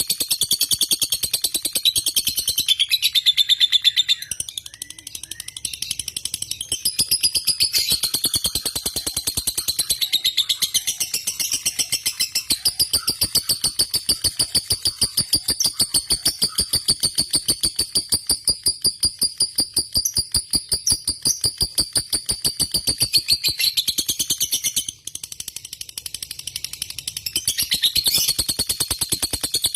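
Lovebird singing a long, almost unbroken chattering trill of very rapid, evenly repeated high notes, dipping briefly twice before picking up again.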